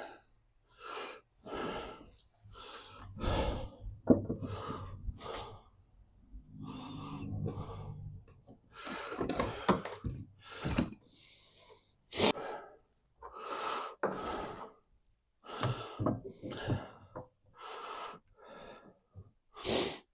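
Intermittent short rustles, clicks and breaths, a couple of dozen separate bursts with pauses between, as headlight assembly parts and wiring are handled at close range.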